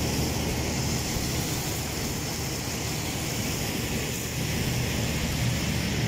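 Water spraying from a hose onto an air-handling unit's finned evaporator coil, a steady hiss and splash, over a low steady machinery hum.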